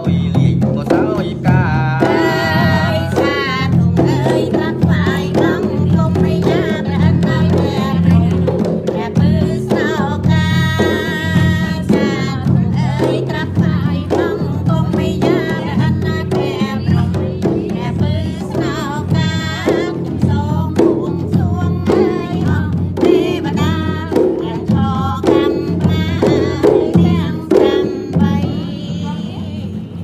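Background music with a steady drum beat under a melody.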